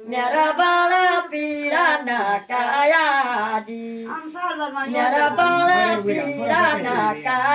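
Unaccompanied singing by women's voices, a folk melody in short phrases with held notes; a lower voice joins about five seconds in.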